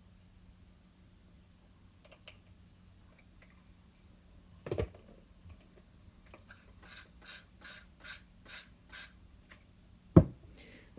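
Acrylic pour paint being stirred in a cup with a stick: a run of about eight scraping strokes, roughly three a second. A knock comes before the stirring and a louder thump near the end.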